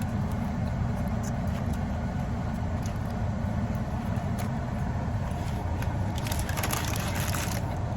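Steady low rumble of a car's cabin, with scattered small mouth sounds of someone biting and chewing a lettuce-wrapped burger. A denser burst of crisp crunching comes near the end.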